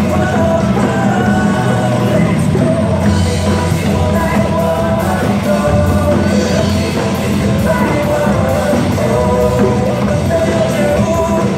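Loud, upbeat song with singing, with live hand drums played along: djembes, a cajón and a drum kit beaten by a children's percussion group.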